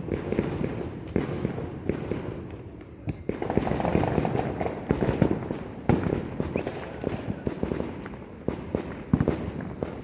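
New Year's firecrackers and fireworks going off all around: a dense, continuous crackle of many small explosions, with louder single bangs standing out, the thickest stretch about halfway through.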